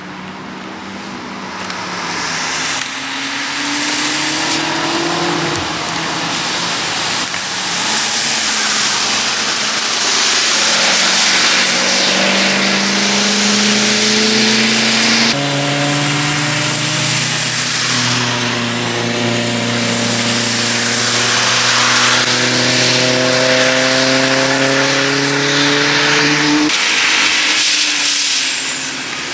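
Several cars in turn accelerating through a corner on a wet race track, their engines rising in pitch as they pull away, over a steady hiss of tyres on the soaked asphalt.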